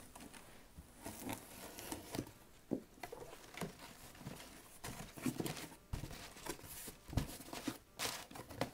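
A cardboard shipping box being opened by hand: packing tape slit and cardboard flaps pulled back and handled. It comes as a string of short scrapes, taps and rustles.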